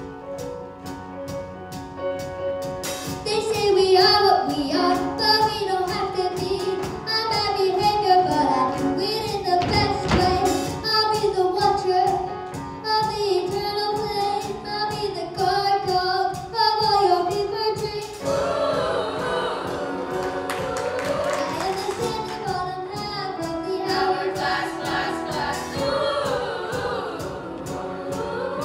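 Middle school choir singing a pop song in a show-choir arrangement, accompanied by a live band with piano and electric guitar. The voices come in about three seconds in, over a steady beat.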